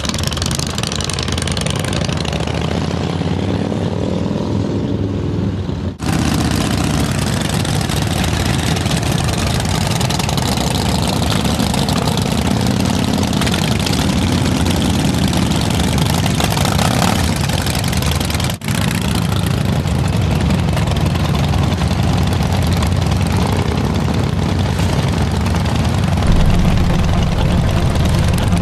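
A group of motorcycles, mostly cruiser and touring bikes, idling and moving off slowly together, their engines running steadily. The sound drops out briefly twice, and a deeper engine rumble swells near the end.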